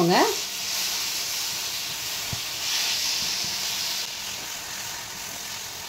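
Thick masala gravy sizzling steadily in a nonstick frying pan while roasted gram flour is stirred into it with a slotted spoon, with a couple of soft knocks of the spoon.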